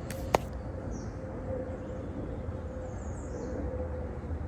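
Outdoor background: a low steady rumble with a faint steady hum, one sharp click about a third of a second in, and a few faint high bird chirps.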